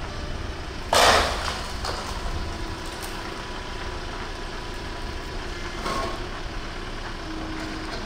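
Engine-driven log splitter running steadily, with a loud sharp crack about a second in as a log splits on the wedge, and a smaller crack near six seconds.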